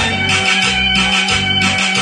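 Cumbia dance music played loud through a sonidero sound system, with a bass note pulsing about twice a second under sustained melody tones.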